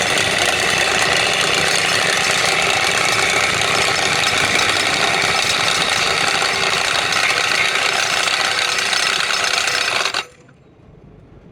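A workshop power tool running loudly and steadily for about ten seconds, then cutting off suddenly.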